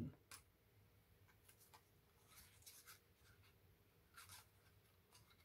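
A few short, faint rustles and light taps of cardstock being handled, small punched paper pieces moved about and pulled from a hand-held craft punch.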